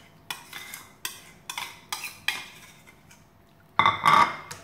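A metal spoon scraping out a small bowl in several short strokes, then a louder clatter near the end as the spoon knocks against the frying pan.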